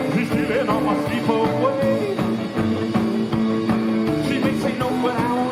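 A rock and roll band playing, with guitar over a steady drum beat.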